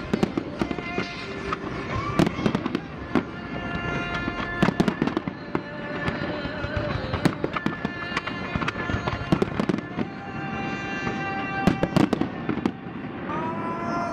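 Fireworks going off: many sharp bangs and crackles at irregular intervals, with steady high tones sounding alongside.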